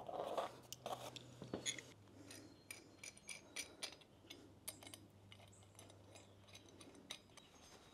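Faint, irregular small metal clicks and ticks from hands working an aluminum adjustable motorcycle side stand as its height is set and locked in, over a low steady hum.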